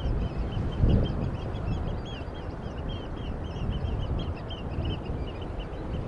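A flock of seaside birds calling busily, with many short, quick, high calls overlapping several per second. Underneath is a steady low rumble that swells briefly about a second in.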